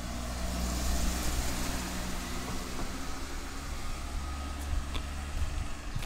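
A car engine running nearby, a steady low hum that swells briefly about a second in.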